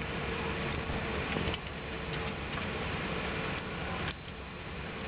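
Airbus A380 cabin noise on the ground after landing: a steady rush of air and low rumble with faint ticks and rattles, stepping down abruptly in level about one and a half seconds in and again about four seconds in.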